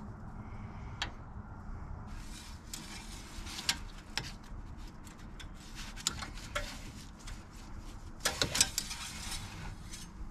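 Light clicks, scrapes and rustles of an engine oil dipstick being pulled from its tube and wiped with a shop rag, with a cluster of sharper rattles about eight seconds in.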